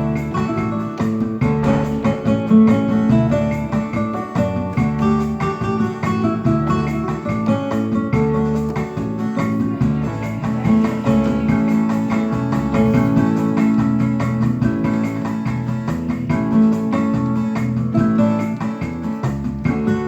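Background music led by a plucked guitar, with keyboard or piano notes.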